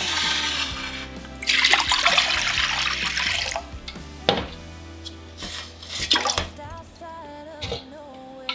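Water poured from a measuring jug into a metal saucepan: a short splash, then a louder, steady pour lasting about two seconds. A sharp knock follows a little after, as of a jug or pan being set down, with background music throughout.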